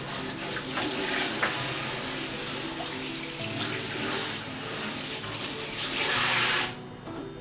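Kitchen tap water running and splashing onto dishes being washed, with a few light clicks, then cut off sharply near the end.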